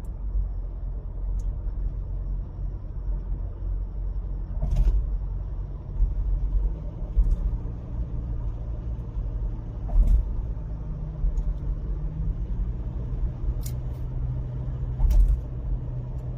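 Car cruising at about 80 km/h: a steady low road-and-engine rumble, with a few short sharp knocks spread through it.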